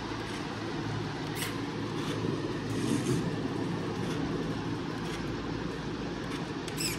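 Scale RC crawler truck's electric motor and geared drivetrain whirring steadily as it creeps forward, with a couple of light clicks.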